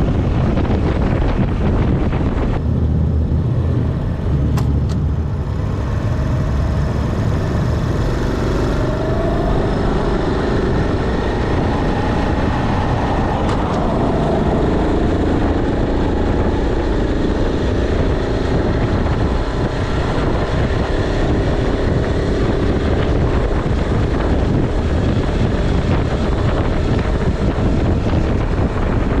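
Riding sound of a stock Honda Super Cub 90's small single-cylinder four-stroke engine on the move, its note rising and falling with speed, under heavy wind rush on the microphone.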